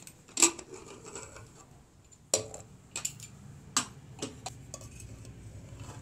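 Aluminium pressure cooker lid being unlocked and lifted off after the pressure has dropped: sharp metal clanks, the loudest about half a second in. Then lighter clinks and scraping of metal on the pot as a spoon goes into the cooked food.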